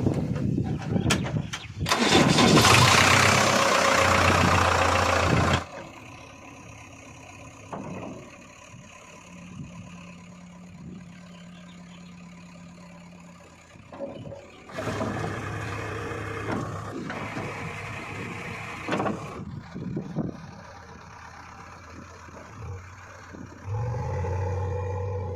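Diesel engines of a backhoe loader and tractors running and revving, in several stretches that stop and start abruptly, with loud hard-working passages and quieter steady running between them.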